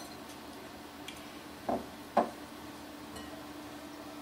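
Two light knocks of a small serving dish, about half a second apart and the second louder, as shredded cheese is tipped from it into a mixing bowl. A faint steady hum runs underneath.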